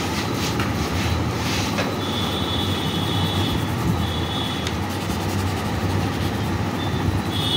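Steady low rumbling noise with a thin high squeal over it, first at about two seconds for over a second, again briefly around four seconds, and once more near the end.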